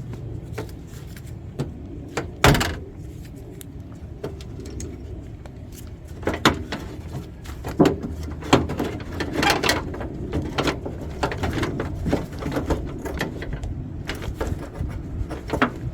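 Scattered clicks, knocks and rattles of hands and tools working on parts inside an open car door, with the sharpest knock about two and a half seconds in and a busier stretch of clatter in the middle.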